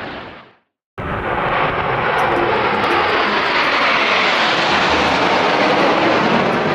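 Jet aircraft roaring past, likely the Red Arrows' BAE Hawk jets, with a slow fall in pitch as they go by. The roar fades out to a second of silence and then cuts back in abruptly at full loudness.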